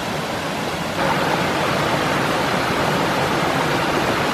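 Waterfall gushing, a steady dense rush of falling water that gets louder about a second in.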